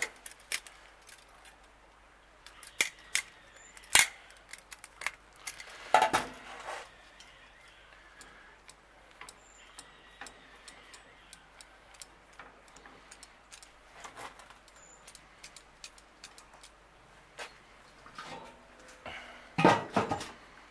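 Metal utensils knocking and clinking against a steel pan of vegetables on a grill grate, as sharp separate knocks every few seconds. Near the end a louder clatter as the metal grill lid is put on.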